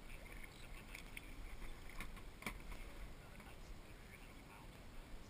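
Quiet kayak paddling: water dripping and lightly splashing off a lifted kayak paddle blade, with scattered soft ticks and one sharper click about two and a half seconds in, over a low rumble.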